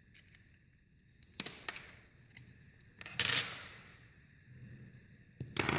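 Small metal lock-cylinder parts clinking against a hard surface three times, each with a short bright ring, as the lock cylinder is taken apart for rekeying.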